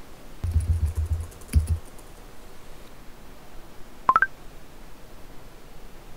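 Typing on a laptop keyboard: a quick run of key clicks and thumps lasting about a second and a half. About four seconds in comes a phone notification of three short beeps rising in pitch.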